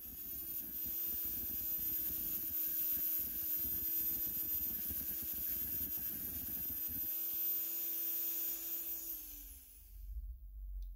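Abrasive cut-off wheel running with a steady whine while it grinds through the threaded end of a steel fishing-reel shaft, throwing sparks. The grinding stops about seven seconds in, and near the end the motor winds down, its pitch falling.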